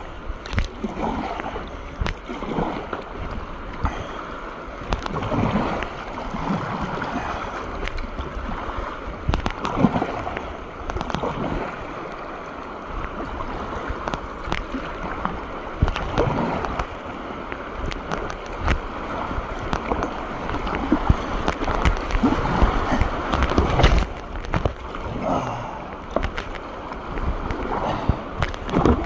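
Rushing whitewater of a river rapid splashing around a kayak, with frequent irregular knocks and slaps of water against the boat.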